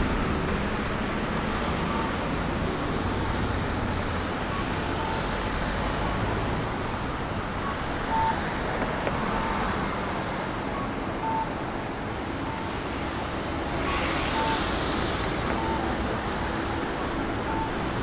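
Steady city road traffic with short, high electronic pips repeating about once a second, an audible pedestrian crossing signal at a street intersection. A vehicle passes close a little past the middle.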